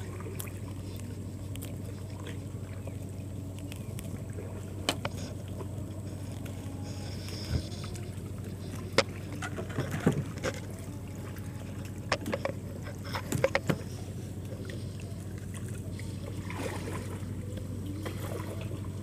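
Steady low drone of a boat engine, with scattered light knocks and clicks of fishing rods and tackle handled in a small boat.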